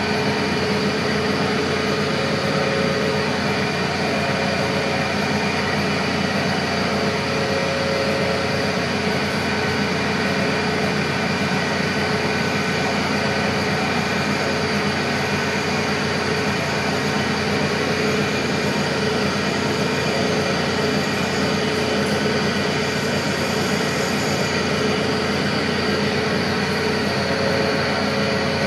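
Milling machine running steadily with its spindle gears whining as a small drill bores a pilot hole in a steel driveshaft flange.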